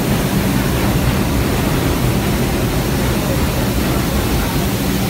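R142 subway train standing at the platform with its doors open, making a steady rushing noise with a low hum underneath.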